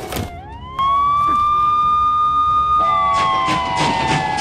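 Ambulance siren wailing. It sweeps up half a second in, holds a high note, then slowly falls again over the last second and a half.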